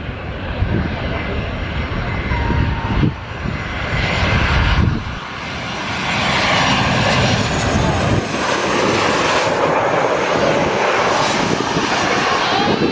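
Jet airliner arriving to land, passing close: a low rumble for the first few seconds, then the engine noise swells about five seconds in and stays loud.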